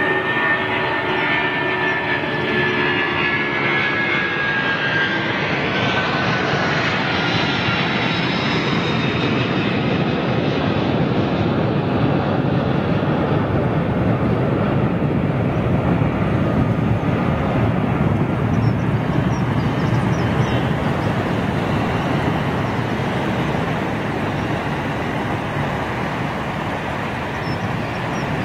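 Four jet engines of a British Airways Boeing 747-400 at take-off power, climbing out overhead and away: a high whine slides down in pitch over the first several seconds as it passes, then gives way to a steady deep rumble that is loudest in the middle and eases slightly near the end.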